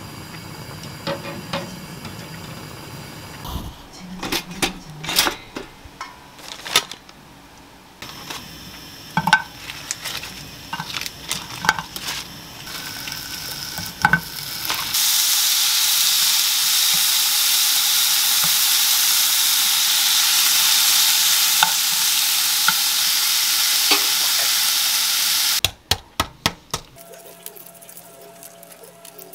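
Bacon strips sizzling steadily in a frying pan for about ten seconds from about halfway in, after scattered knocks and clatter of cookware at the stove. Near the end, a quick run of sharp taps as a boiled egg's shell is cracked.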